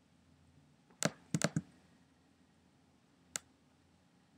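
Computer mouse clicks: one click about a second in, a quick pair of clicks just after it, and one more click over a second later.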